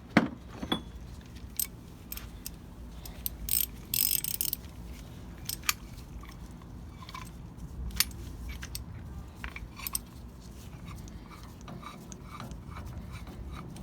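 Irregular metallic clicks and clanks of a ball joint press tool and wrench being fitted and turned to press a new bushing into a leaf spring eye, with a short rasping scrape about 4 seconds in.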